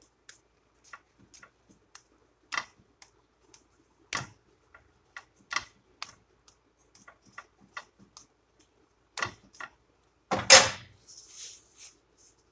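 Quesadilla cooking in a pan under a spatula: irregular light clicks and ticks, with one louder knock followed by a brief hiss about ten seconds in. A faint steady hum runs underneath.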